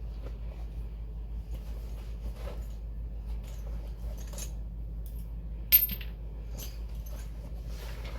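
Small metal hand tools, sockets and wrenches, clinking and clicking as they are handled, with one sharp, bright metallic clink a little past halfway.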